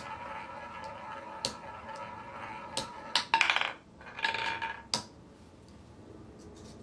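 Roulette ball running round the wooden wheel's track with a steady whirr, then dropping into the spinning wheelhead and clattering across the pocket frets in two rattling runs about three to five seconds in, a last click as it settles in a pocket.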